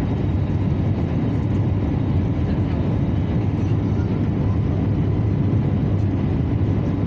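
Airbus A321neo cabin noise in flight: a steady, deep rush of engine and airflow noise heard from inside the passenger cabin, with a faint steady tone above it.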